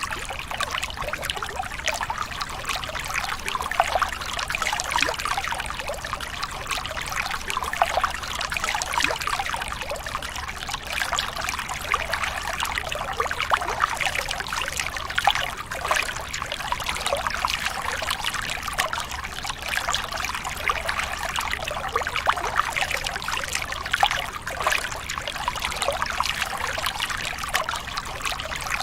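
Shallow river water flowing and trickling over stones, a steady babbling with many small splashes.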